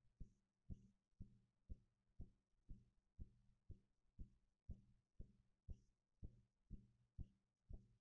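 Faint, even, low thumping about two beats a second, like a distant bass drum or a heartbeat, over a low steady hum.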